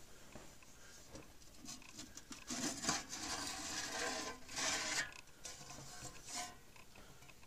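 Painted sheet-metal cover of a Robot 400 slow-scan TV scan converter being lifted and slid off its chassis by hand. It rubs and scrapes for about two and a half seconds, starting a couple of seconds in.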